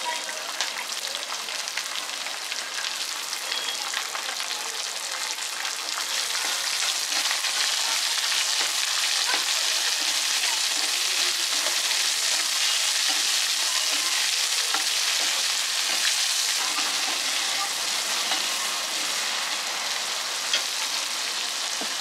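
Chopped onions sizzling in hot oil over a cumin, curry-leaf and green-chilli tempering, stirred now and then with a spatula. The sizzle grows louder about a quarter of the way in and then holds steady.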